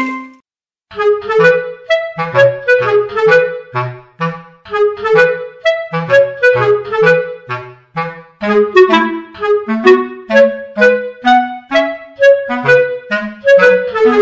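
Background music: a woodwind melody in short, detached notes over a bass line, starting about a second in after a brief gap.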